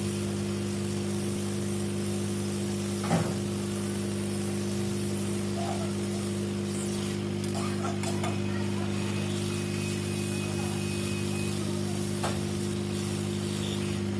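Hot air rework gun blowing steadily with a constant hum while it heats the board to desolder the speaker's charging connector. A few light clicks of tools on the board break in.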